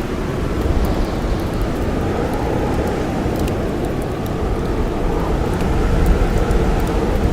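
Steady low rush of blizzard wind, with sparse sharp crackles and pops of a campfire scattered through it.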